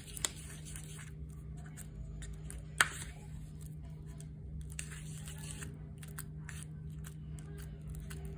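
Clay slime mixture being stirred in a bowl with a spoon: intermittent scraping and squishing, with two sharp knocks, the louder about three seconds in, over a steady low hum.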